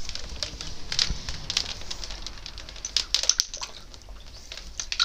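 Blue high-pressure plastic hose being coiled by hand: irregular clicks and rustles as the hose slides over itself and taps on the concrete floor, a little busier about three seconds in.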